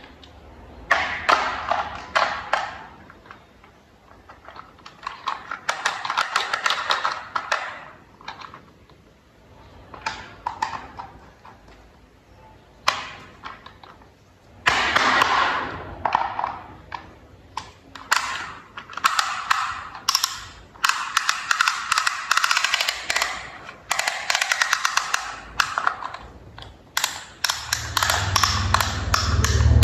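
Plastic toy parts clicking and rattling in repeated bursts of a second or more as they are handled and fitted together, with short pauses between bursts. A low rumble comes in near the end.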